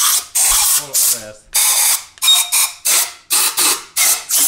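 Compressed-air blow gun hissing in short repeated blasts, coming quicker toward the end, as it clears aluminium chips out of the bolt holes in an engine block deck.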